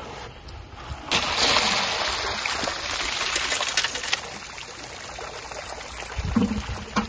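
Water and a load of lionfish poured out of a bucket onto ice in a boat's fish box: a sudden splashing rush about a second in, with scattered clicks of fish and ice, that tapers off after a few seconds.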